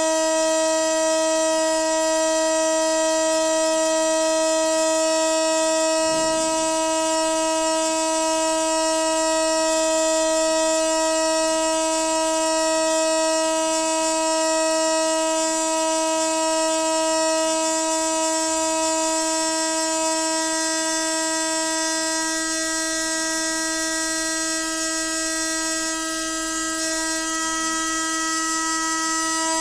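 Noisy water pipe giving off a steady, unbroken humming tone with a hiss on top.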